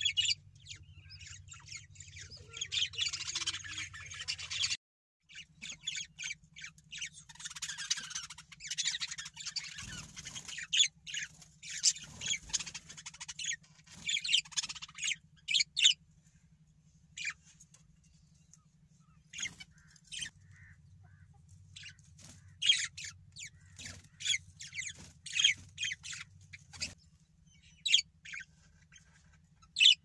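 Budgerigars chattering. A dense warble of many overlapping calls fills the first half; the second half has separate sharp chirps and squawks.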